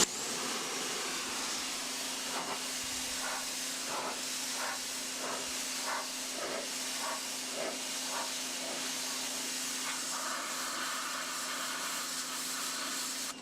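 Homdox 1800 W electric pressure washer spraying a high-pressure water jet onto a rock: a steady hiss of spray over a constant hum from the pump motor.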